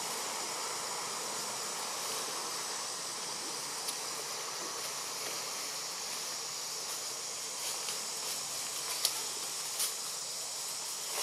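Steady high-pitched drone of insects in the forest canopy, with a few faint sharp clicks in the last few seconds.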